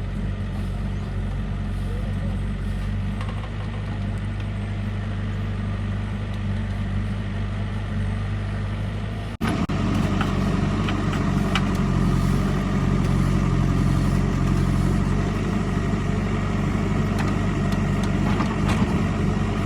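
JCB 3DX backhoe loader's diesel engine running steadily. After an abrupt cut about halfway through it is louder, with a few sharp knocks over it.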